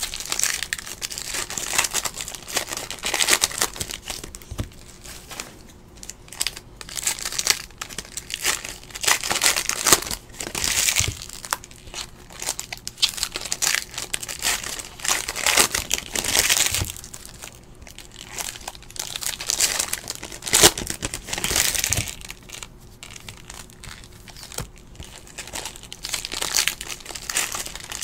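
Foil trading-card pack wrappers being torn open and crinkled by hand, in repeated bursts of crackling with a few sharp clicks.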